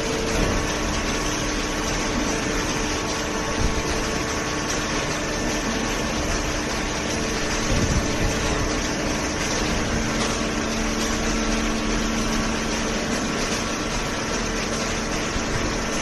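Steady machine noise of a waste-paper baling line at work: the horizontal hydraulic baler's power unit and the feed conveyor running together, with a few held tones and occasional light knocks.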